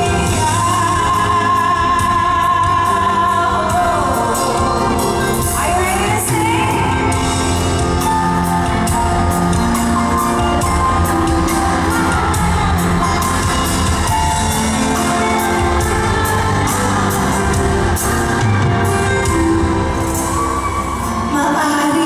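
A woman singing a pop ballad live into a microphone over a full band of keyboards, bass and drums, with steady cymbal ticks, in a large reverberant hall. About six seconds in, the voice makes a quick upward slide.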